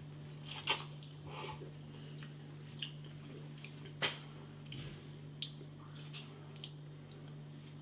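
A person slurping instant rice noodles off a fork, then chewing, with faint short wet mouth clicks; the loudest slurp comes within the first second. A low steady hum runs underneath.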